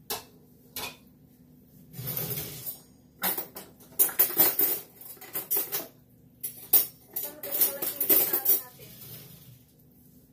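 Metal kitchenware clinking and clattering: a couple of sharp clicks near the start, then a run of quick clinks and rattles from about three to nine seconds in.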